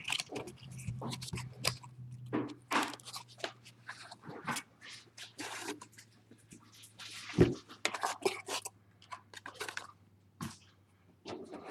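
Handling of trading-card packaging: irregular crinkling, crackling and rustling as a card box and its packs are opened and cards handled, over a faint steady low hum.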